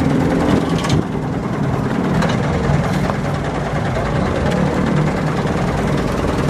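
A truck's diesel engine running steadily.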